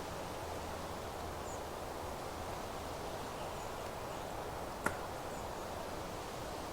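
Steady rustling meadow ambience, with a few faint, short, high bird chirps and one sharp click nearly five seconds in.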